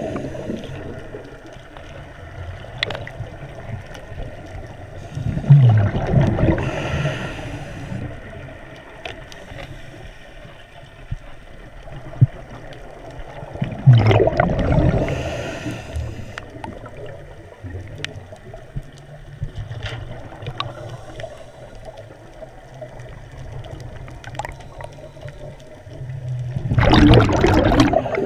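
A diver's exhaled air bubbling out underwater in loud gurgling surges, three times about eight to thirteen seconds apart, with a steady water hiss between.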